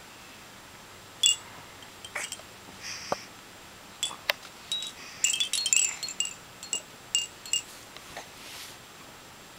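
Hanging toys on a baby play gym giving short, high tinkling rings as the baby grabs and knocks them. The rings come scattered and are thickest about five to six seconds in.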